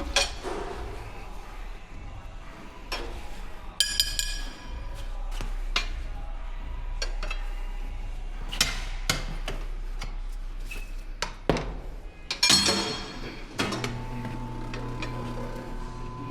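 Metal parts and tools clanking and clinking in a tire shop, with a few bright ringing clinks among sharper knocks. A machine's motor starts a steady hum about three-quarters of the way through.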